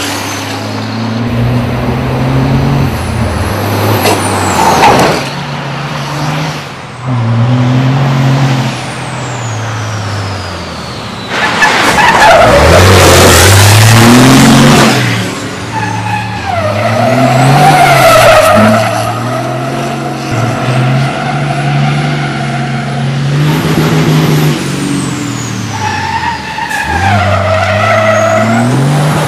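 MAN racing truck's diesel engine revving hard, its pitch climbing and dropping again and again, while its tyres slide and squeal. The loudest part, a few seconds before the middle, is a long rush of spinning, skidding tyres under full power, and sustained tyre squeals come after the middle and again near the end.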